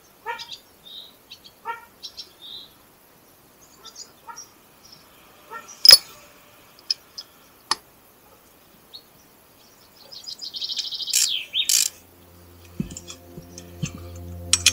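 Small birds chirping and trilling, with a few sharp metallic clinks of small engine parts and tools being set down on a wooden board. A steady low hum sets in near the end.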